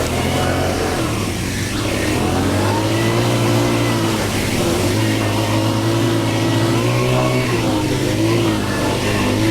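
ATV engine running under way, its pitch rising and falling several times as the throttle is opened and eased.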